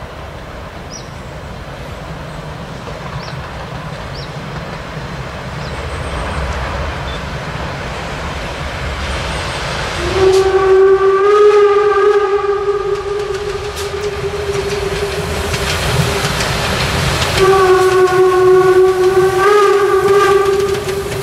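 Narrow-gauge HSB 2-10-2T steam locomotive (class 99.23–24) approaching with a low running rumble that grows steadily louder, then sounding its steam whistle in two long blasts: one about ten seconds in lasting some five seconds, and a second starting a couple of seconds later and running on as the engine draws level.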